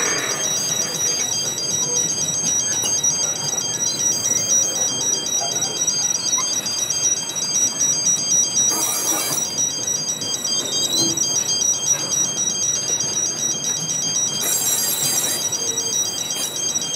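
Level crossing's electronic warning alarm sounding steadily as a fast-alternating two-tone warble while cement tank wagons roll slowly over the crossing. Two brief bursts of high hiss come through, about halfway and near the end.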